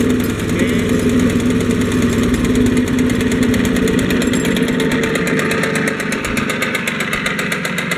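Grillo G110 walk-behind tractor running with its brush mower engaged through the PTO. The engine note changes about two seconds in. The low rumble thins after about five seconds as the running winds down, with the mower deck still turning.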